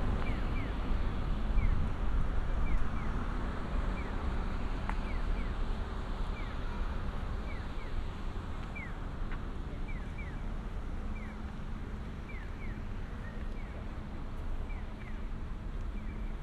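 Steady low rumble of wind on the microphone and road traffic, easing off somewhat over the first half. Short, high, downward chirps repeat through it, often in pairs.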